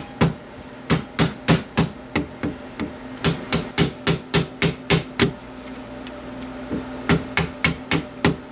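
Hammer tapping a punch to drive the steel retaining pin of a Saiga 12 shotgun's magazine release into place. The strikes are light and quick, about four a second. They pause about five seconds in and resume a couple of seconds later.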